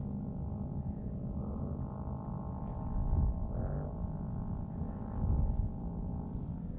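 Distant buzz of the Cox E-Z Bee Sport's .049 glow engine running in flight, a thin steady drone, with low wind rumble on the microphone that swells twice.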